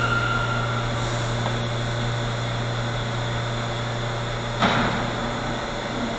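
R179 subway train coming to a stop at the platform. A steady high whine fades out within the first second, leaving a steady low hum from the standing cars. A short, loud burst of noise comes about four and a half seconds in.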